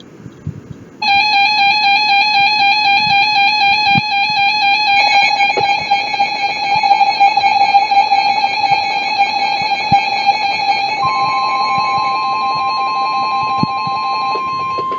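Weather radio emergency alert tones: a loud warbling electronic alarm starting about a second in, joined about eleven seconds in by a steady single-pitch tone, the 1050 Hz Weather Radio warning alarm that comes before a warning message.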